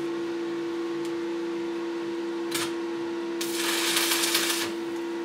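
Stick (electric arc) welding electrode struck: a brief crackle about two and a half seconds in, then about a second of loud sizzling crackle from the arc near the end. It is a test strike to check the welding current, which has just been turned up after being too low. A steady hum runs underneath.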